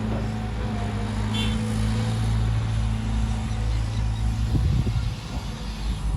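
Heavy diesel engine running steadily with a low drone, a brief high squeak just over a second in, and a short burst of clanking about four and a half seconds in.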